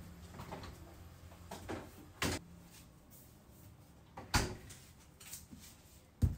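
Kitchen handling sounds: a few knocks and a thud as a refrigerator door is opened and shut, then a sharp knock near the end as a plastic food tray is set down on a stainless-steel counter.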